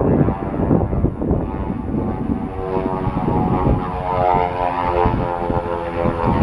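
Beechcraft Twin Beech 18's two Pratt & Whitney R-985 radial engines running as the plane flies a display pass, a low propeller rumble with an engine drone that comes through more clearly about halfway through.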